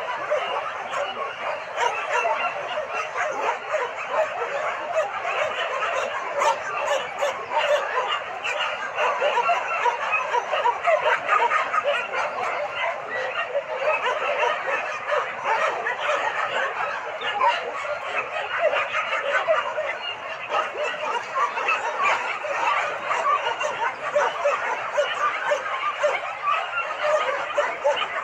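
Many dogs and puppies barking and yipping over one another in a continuous chorus.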